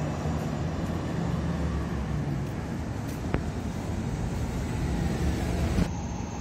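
Diesel-electric hybrid city bus running as it drives away: a steady low engine drone with road noise. One sharp click about halfway through.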